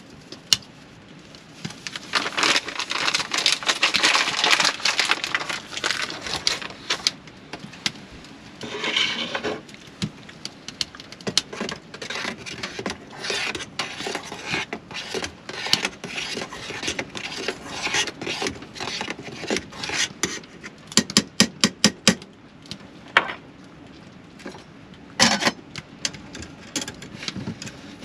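A packet rustling, then a string of clinks, knocks and scrapes as a pot and a kettle are handled on a counter, with a quick run of clicks partway through.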